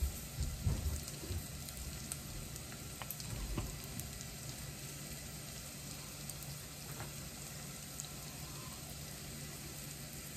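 Onion frying in a pan on the stove: a steady, even sizzle. A few soft knocks and light taps in the first second or so, from a basting brush and a small bowl being handled.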